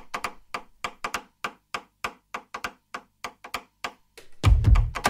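Background music opening with a run of quick, evenly spaced percussive clicks, about five a second. About four seconds in, a heavy bass beat comes in and becomes the loudest sound.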